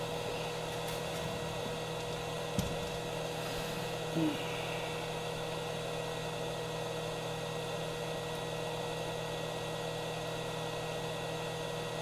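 Steady electrical hum with a light hiss and one held tone, broken by a single click about two and a half seconds in.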